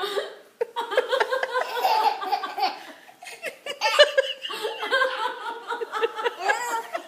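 A toddler laughing in a run of short bursts. The laughter pauses briefly about three seconds in, then starts again.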